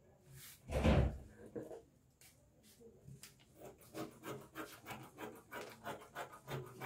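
Hands brushing fabric flat on paper, a loud rub about a second in, then scissors snipping through the fabric in a quick run of short cuts, several a second.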